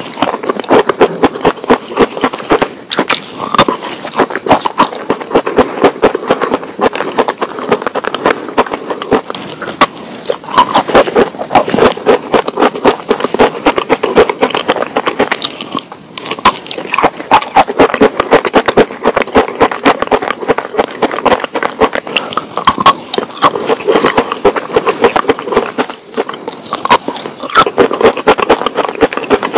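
Crunching and chewing of a hard, crumbly food: a dense, irregular crackle of sharp snaps that runs without pause and dips briefly a few times.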